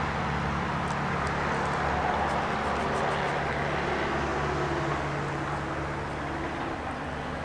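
Steady road-traffic rumble with a low hum, swelling a little in the first few seconds and easing off toward the end.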